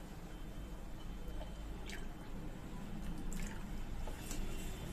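Wire whisk beating a thin gram-flour and buttermilk batter in a stainless-steel bowl: a faint, soft sloshing of liquid, with a couple of light ticks.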